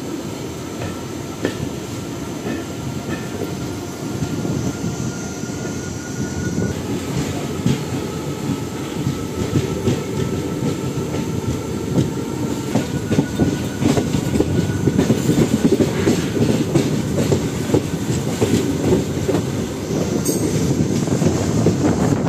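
Passenger train coaches running on the rails: a steady rumble with wheels clacking over rail joints and a faint high whine, growing gradually louder.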